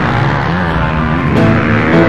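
Music soundtrack playing at a steady loud level.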